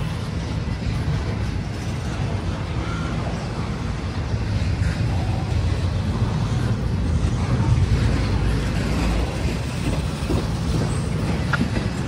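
A train rolling by: a steady low rumble of wheels on rail, a little louder about two-thirds of the way through.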